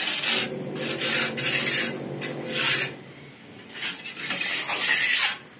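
Steel trowel scraping wet cement mortar across a concrete wall: about five separate scraping strokes, the longest near the end.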